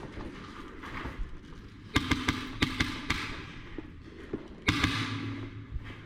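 Airsoft gun fired in two bursts of rapid shots, about two seconds in and again near five seconds in, with a low steady whir under each burst.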